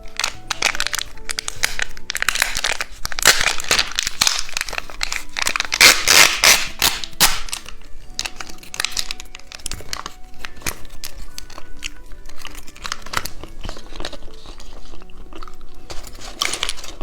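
Plastic snack wrapper crinkling and tearing as a two-colour cheese stick is unwrapped, with dense irregular rustling that is loudest in the first half. Soft background music plays underneath.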